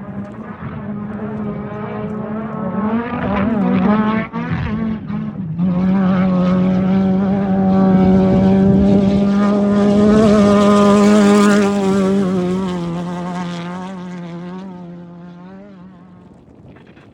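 An off-road race vehicle's engine held at high revs. It lifts briefly about four seconds in, then holds a steady note that grows louder as it comes close. Its pitch drops slightly as it goes away and fades out near the end.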